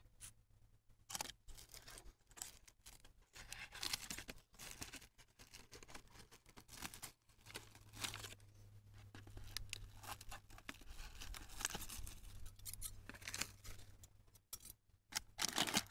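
Thin plastic bags crinkling and rustling in irregular bursts as they are handled and pulled away from a grafted branch.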